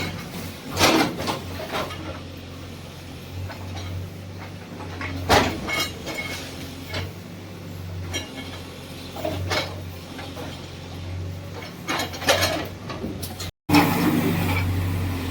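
Diesel engine of a bulldozer running steadily under repeated metallic clanks and knocks. The audio cuts out for a moment near the end and comes back with the engine louder.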